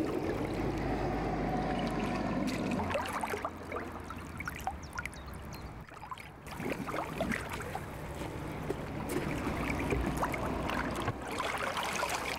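Shallow pond water sloshing and splashing around hands releasing a large trout, with many small splashes and drips. A faint low steady hum runs underneath.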